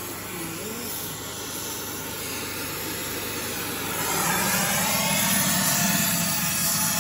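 Oxy-fuel torch flame hissing steadily as it heats steel horseshoes. It gets louder about four seconds in, as the flame comes back onto the shoe to melt on a Drill Tec traction rod.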